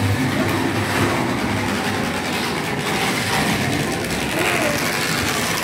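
Model steam tram locomotive running along the track with its wagons in tow: the small electric motor running and the wheels clattering over the rails and turnouts.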